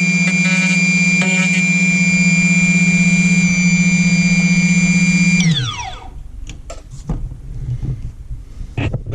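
Portable key-cutting machine running with a steady whine and hum, then switched off about two-thirds of the way in, its motor winding down in a falling pitch. A few clicks and knocks follow as the cut key side is finished and handled.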